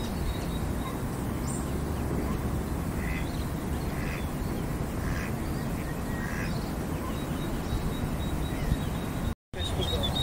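A few faint, short duck quacks between about three and seven seconds in, over a steady low background rumble. The sound drops out for a moment near the end.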